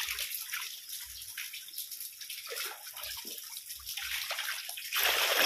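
Tilapia splashing and flapping in the shallow water left in a drained concrete pond as a hand scoops them into a plastic basket, with a few soft thumps. The splashing turns much louder about five seconds in.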